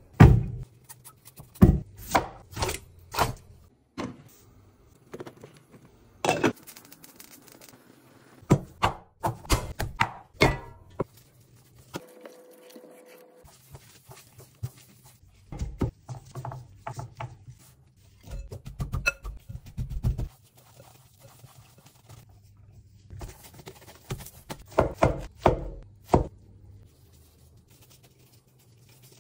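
Kitchen prep sounds: scattered knocks, taps and thunks of utensils and bowls against a cutting board and counter, coming in irregular clusters with short pauses between them.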